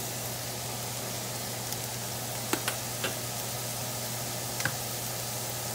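Crumbled sausage sizzling steadily in a cast-iron skillet, with a few sharp clicks around two and a half to three seconds in and again about four and a half seconds in.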